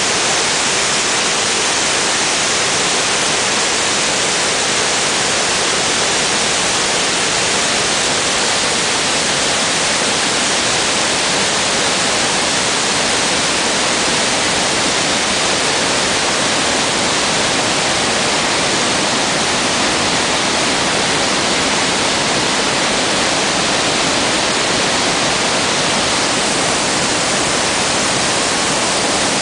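Loud, steady rush of the Iguazú Falls: a great mass of water pouring over the cliff and crashing onto rocks.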